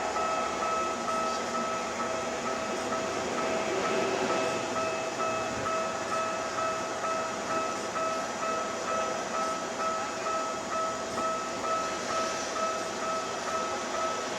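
Japanese level-crossing warning bell ringing in a steady rapid "kan-kan" rhythm about twice a second, over the running noise of a Toei 5300-series commuter train at the crossing, with its wheels beating over rail joints toward the end.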